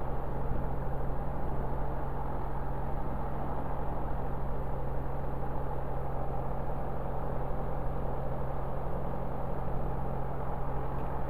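Light airplane's piston engine and propeller running at taxi idle, a steady low drone heard from inside the cockpit.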